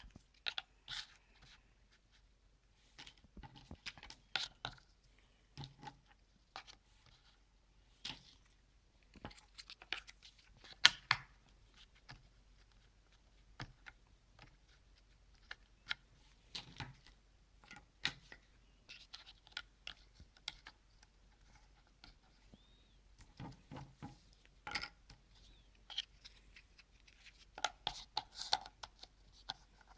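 Cardboard jigsaw puzzle pieces being handled and pressed into place: faint, irregular clicks, taps and scrapes with short pauses between them, the sharpest about eleven seconds in and a flurry near the end.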